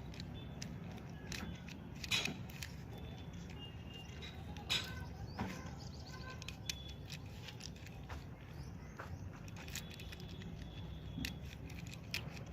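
Small plastic 3×3 Rubik's cube being turned by hand, its layers giving irregular light clicks and rattles as moves are made.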